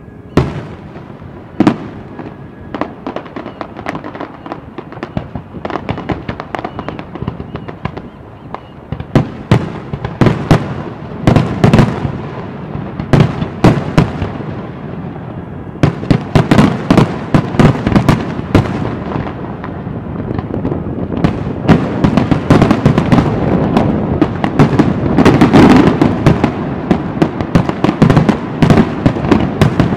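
Fireworks display: aerial shells bursting with sharp bangs and crackle. A few scattered bursts at first, then from about nine seconds in they come faster and overlap into a dense, continuous barrage.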